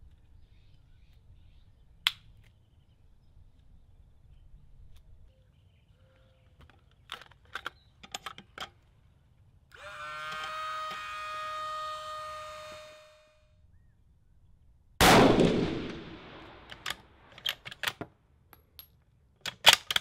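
Small clicks of cartridges being handled and loaded into a rifle magazine, then a steady ringing tone lasting about three seconds. About 15 seconds in, a single rifle shot goes off with an echoing tail, followed by several sharp metallic clicks.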